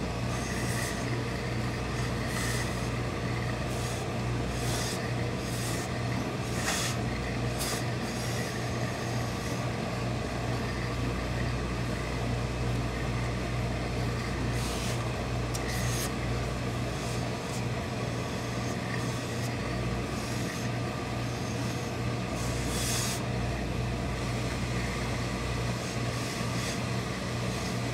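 Industrial hose-fed steam iron pressing wool cloth, giving short hisses of steam about eight times, over a steady low machine hum from the pressing equipment.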